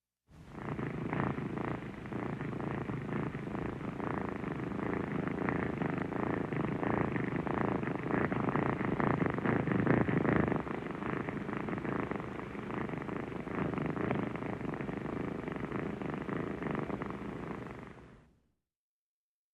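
Airplane engine running: a steady, fast-pulsing rumble that swells slightly about halfway through. It starts and stops abruptly.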